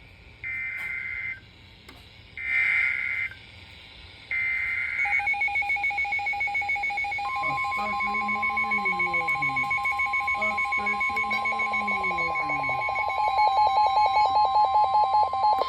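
Emergency Alert System SAME header on NOAA Weather Radio: three short bursts of buzzy digital data, then a continuous alert tone. A rapidly pulsing tone starts about five seconds in, a steady high alarm tone joins it about two seconds later, and both get louder near the end, sounding the start of a special marine warning.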